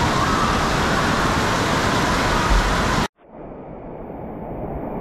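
Indoor water park ambience: a loud, steady wash of running and splashing water and hall noise echoing under a high roof, with a short low thump near the middle. It cuts off abruptly about three seconds in, and a much quieter, duller room tone takes over and slowly grows louder.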